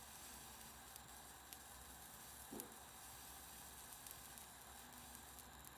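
Faint, steady hiss of a small jeweller's soldering torch turned down low, flame on a gold earring post being soldered, with a few tiny ticks.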